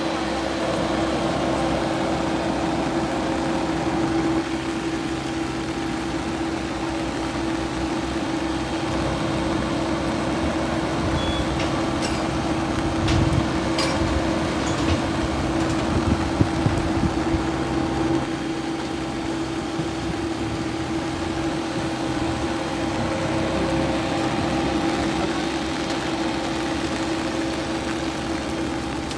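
Steady mechanical drone from a parked turboprop airliner, one constant tone with overtones over a wash of rain noise. A few louder thumps come about halfway through.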